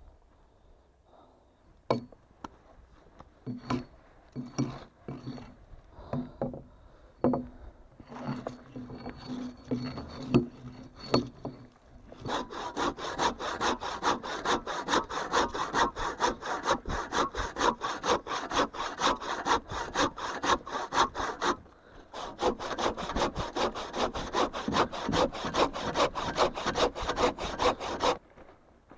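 Hand saw cutting through wood with rapid, even back-and-forth strokes, starting after about twelve seconds, breaking off briefly, then going on until it stops suddenly near the end. Before the sawing come scattered knocks and cracks of wood being handled.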